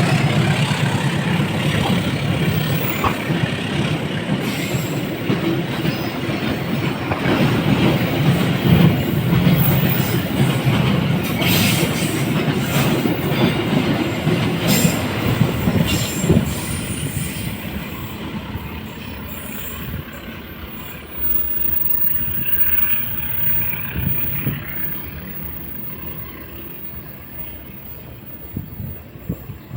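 A train rolling past on the rails, a dense rumble of wheels and cars with sharp clicks about halfway through, then fading steadily away over the second half as it recedes.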